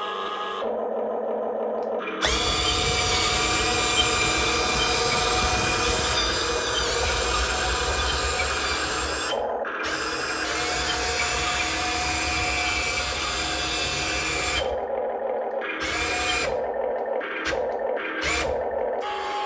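All-metal 1:20 scale RC CAT 330D L excavator on the move: its electric gear motors whir and its metal tracks rattle steadily for about twelve seconds, with a short break partway through. Near the end come several short start-stop bursts of motor whine as single functions are worked.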